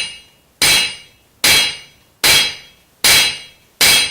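Hammer striking steel on an anvil in a steady rhythm, about five blows a little more than one a second apart, each ringing and dying away before the next.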